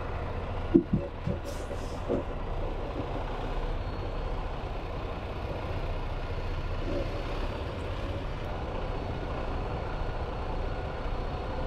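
Semi-truck diesel engine running steadily. About a second in come three or four sharp clunks, the first the loudest, followed by a brief hiss of air.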